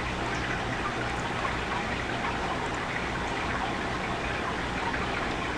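Steady background hiss with no distinct events: the recording's own noise floor.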